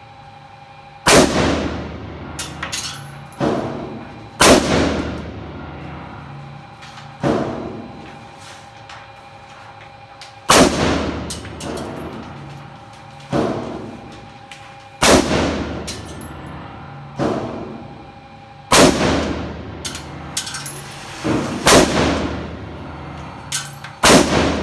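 AR-15 rifle fired one shot at a time, a dozen or so shots at uneven intervals of about one to three seconds, each sharp report ringing out in the enclosed indoor range. Fainter clicks fall between the shots, over a faint steady hum.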